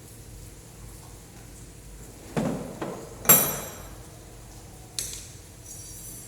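Metal hand tools and engine parts knocking and clinking as they are handled: a few sharp clanks, the loudest about three seconds in with a bright metallic ring, and another about five seconds in.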